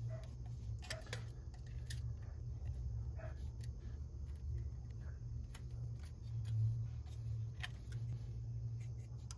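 Scattered light clicks and taps of hand tools working on metal, over a steady low hum.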